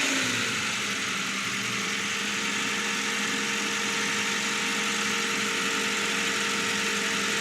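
Toyota Hiace van engine idling steadily just after it has been started, its revs settling down to a steady idle in the first second.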